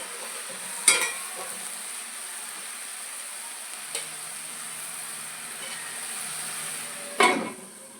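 Malabar spinach frying in a kadai, sizzling steadily. A sharp clank about a second in, from the lid being set on the pan, and a louder clank with a short ring a little after seven seconds.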